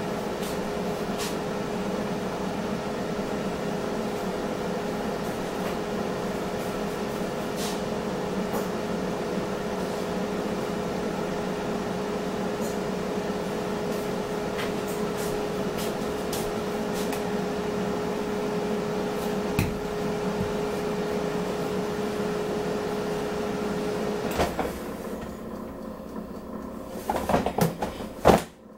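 Steady hum of a kitchen appliance's fan motor, with a held tone and a few faint pops, switched off about 24 seconds in. A few loud knocks and handling bumps follow near the end.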